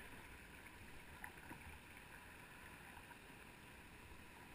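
Near silence: faint steady water noise from a canoe gliding on a calm river, with a couple of faint soft knocks about a second and a half in.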